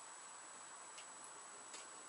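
Near silence: faint room hiss with a thin steady high whine and two faint clicks.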